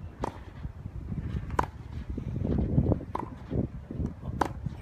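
A tennis rally on a green clay court: four sharp knocks of a tennis ball struck by racquets and bouncing, about one every second and a quarter, over a low rumble. The player in view is hitting with a Prince Textreme Tour 95 racquet.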